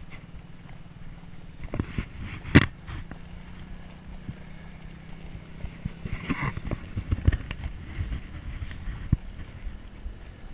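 A horse's hooves thudding along a dirt road, with wind on the microphone and a few sharper knocks, the loudest about two and a half seconds in. A steady low hum runs underneath.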